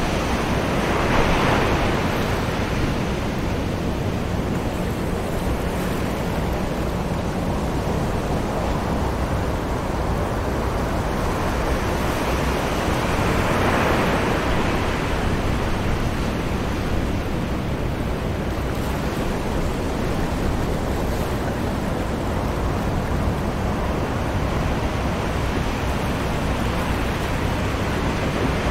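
Ocean waves on a beach heard from a distance: a steady wash of surf with two waves swelling and breaking, one about a second in and one about halfway through.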